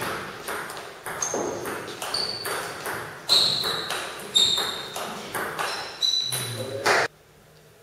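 Table-tennis rally: the ball clicks back and forth off the bats and the table about twice a second, several bounces ringing with a high ping. The rally stops suddenly about seven seconds in.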